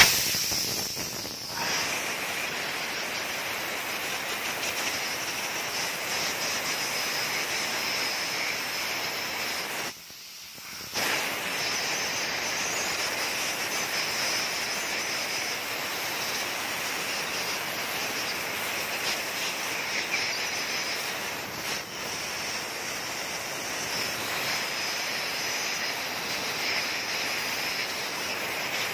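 Compressed-air blow gun giving a steady hiss as it blasts air through the passages of a removed Isuzu 4JA1 oil pump housing to clean it. The air cuts off for about a second roughly ten seconds in, then starts again.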